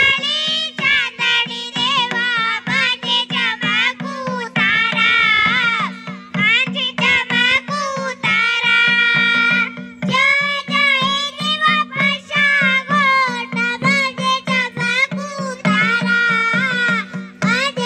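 Himachali Nati folk dance music: a steady, quick drum beat under a steady low drone, with a winding melody line rising and falling over it.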